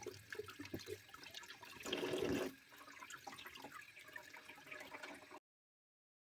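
Water running and splashing, with small knocks and clatter; a louder gush about two seconds in, then the sound cuts off abruptly.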